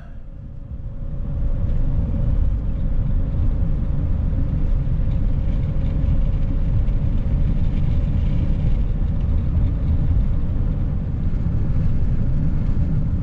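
Vehicle road noise at highway speed, heard from inside the cab: a steady low rumble of tyres and engine with a faint constant hum. It grows louder over the first second or two, then holds steady.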